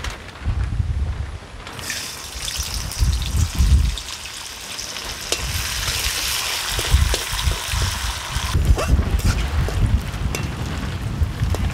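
Washed, turmeric-coated bhog rice dropped into hot oil in a metal kadai, sizzling loudly, with a slotted spoon stirring it against the pan. The sizzle starts about two seconds in and dies down near the end, over low rumbling wind on the microphone.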